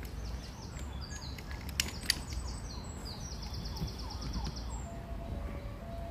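A small songbird singing fast, high trills of rapidly repeated notes over a steady low outdoor rumble, with two sharp clicks about two seconds in. A faint steady tone starts near the end.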